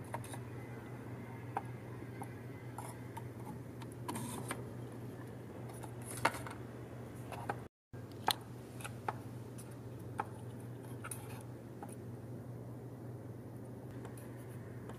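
Light clicks, taps and rustles of stiff paper-and-card toy pieces being handled and set into a folded-paper room, over a steady low hum. The sound drops out for an instant about halfway.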